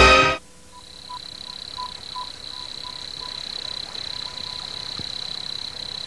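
Brass music cuts off just after the start, then a steady high-pitched chirring like night-time animal ambience, with faint short calls repeating irregularly underneath.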